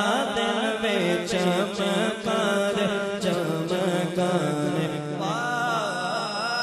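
Male naat reciter singing an Urdu naat into a microphone: long, ornamented melodic phrases over a steady low drone.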